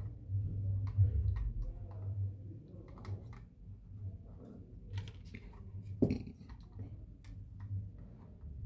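Scattered light clicks and taps of multimeter probe tips and fingers on a circuit board, with one sharper knock about six seconds in, over a low hum.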